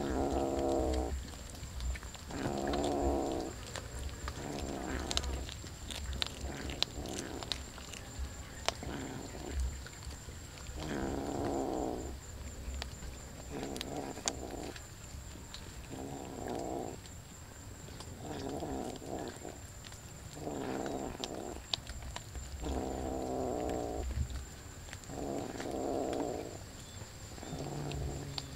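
Domestic cat growling over raw fish it is eating: a long run of low growls, each about a second long, one every two seconds or so. Short sharp clicks of chewing come between them.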